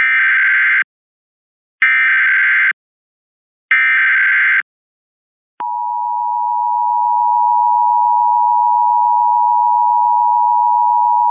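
Emergency Alert System broadcast tones: three short bursts of warbling digital header data, then, about five and a half seconds in, the steady two-tone attention signal starts and holds. They mark the start of a flash flood warning alert.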